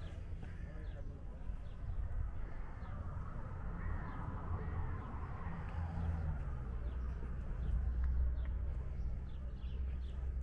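A few short bird calls over a steady low rumble of outdoor city background that swells slightly near the end.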